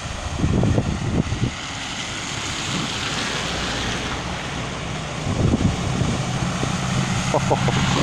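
Steady rush of floodwater with wind gusting on the microphone. About halfway through, a low steady engine hum comes in.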